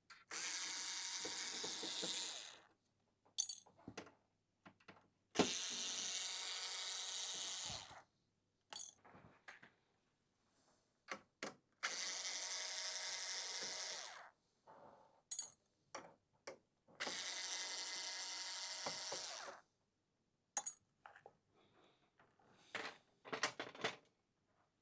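Powered screwdriver run four times, two to three seconds each, backing out the four screws that hold the screen's hinge assembly, with light clicks and taps of screws and parts being handled between runs.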